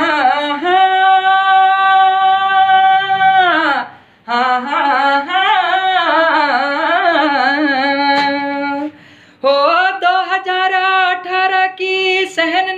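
A young man singing a Pahari folk song unaccompanied, in a high voice without clear words. He holds one long note for about four seconds, then sings a wavering, ornamented phrase, and after a short breath starts a third phrase.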